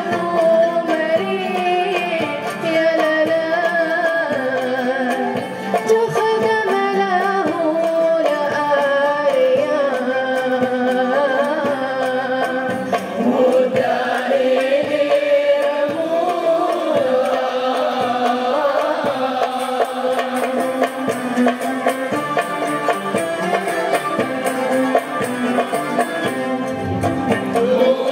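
A woman singing a solo melody, accompanied by an ensemble of ouds, mandolins, violins and guitars, with a hand drum keeping the beat.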